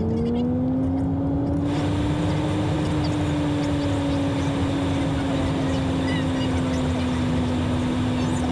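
Honda Fit driving along, its engine drone rising slightly in pitch at first and then holding steady under a constant rush of road and tyre noise.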